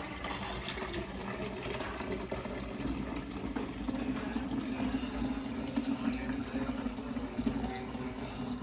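Water running steadily into a container.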